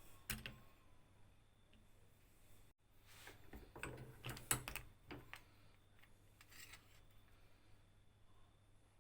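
Faint clicks and clinks of an old hand drill's parts being handled: a couple at first, then a busier flurry in the middle, then a few more.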